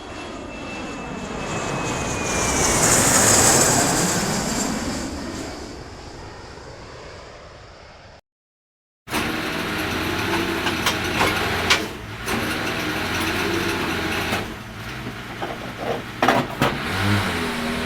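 An aircraft passes overhead, swelling to a peak about three seconds in and fading away, its whine falling in pitch as it goes. After a brief silence, an engine runs with scattered knocks and clatter.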